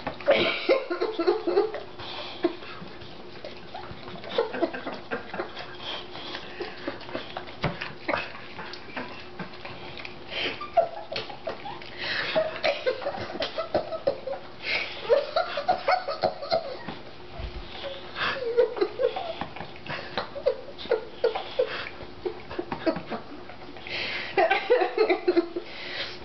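Dog licking peanut butter off a person's face: a long run of short licking and lapping sounds, with brief bits of the person's voice near the start, around the middle and near the end.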